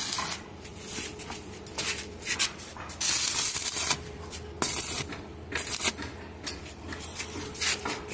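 Stick (arc) welding on a stainless steel pipe railing joint: the arc crackles and hisses in short bursts, from a fraction of a second to about a second, stopping and restarting several times over a low steady hum.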